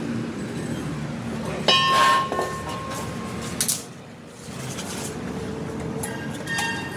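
A sharp metallic clink that rings briefly, about two seconds in, and a lighter ringing clink near the end, over a steady low background rumble.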